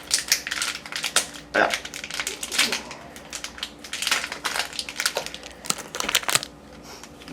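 A SweeTarts candy wrapper crinkling and crackling in irregular handfuls as it is opened and handled. The sound thins out near the end.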